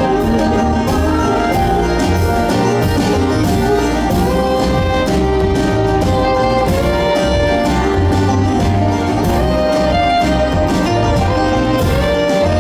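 Live acoustic string band playing an instrumental passage, with a bowed fiddle carrying the melody over picked banjo, strummed acoustic guitar and upright bass.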